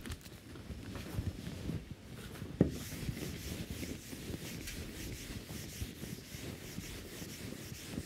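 Whiteboard duster rubbing across a whiteboard in repeated wiping strokes, after a few dull knocks or steps at the start.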